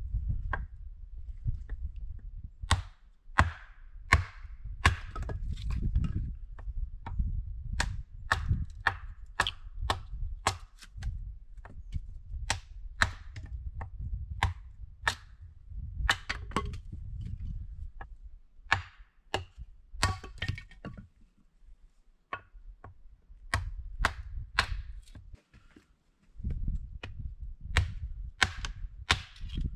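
A long irregular series of sharp cracks and snaps, often one or two a second with short pauses, over a low rumble.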